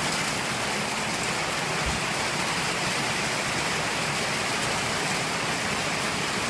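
Heavy rain pouring down during a thunderstorm, a steady even hiss.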